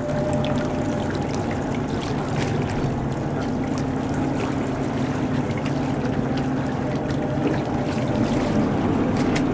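A boat's engine running steadily under a wash of water noise.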